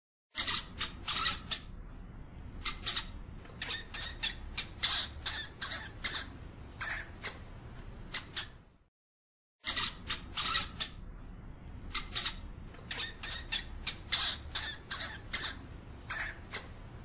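European hamster giving a series of short, high calls: a few loud ones, then a quicker run of softer ones. The run breaks off for about a second near the middle and then repeats.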